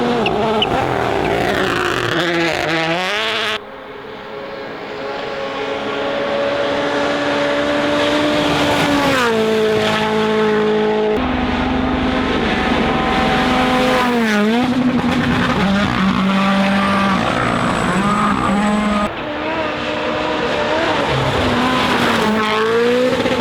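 WRC Rally1 car engines (1.6-litre turbocharged four-cylinders) at full attack, the engine note holding high and then dropping and swooping as the driver shifts and lifts. The sound changes abruptly three times as one pass gives way to the next.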